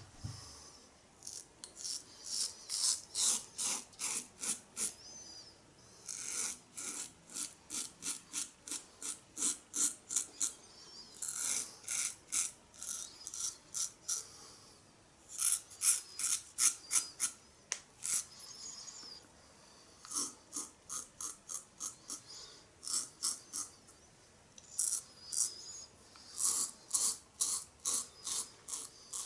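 Merkur Futur adjustable double-edge safety razor cutting lathered beard stubble, a crisp rasp on each short stroke. The strokes come about three a second, in runs with brief pauses between them.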